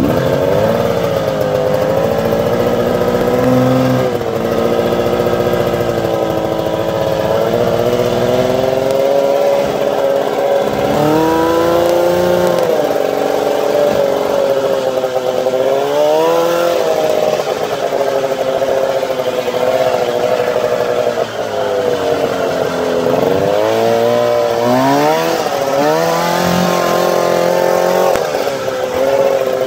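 Arctic Cat 340 two-stroke snowmobile engine, on new spark plugs, driving a Yamaha golf cart. It runs steadily and revs up and eases off several times as the throttle is worked.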